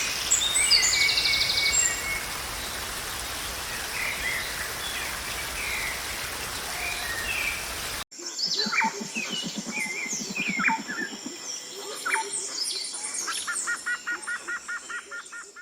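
Birds chirping and singing over a steady rush of waterfall water. About eight seconds in, the water noise cuts out abruptly and a chorus of several birds sings on over a quiet background, with a low pulsing call for a few seconds.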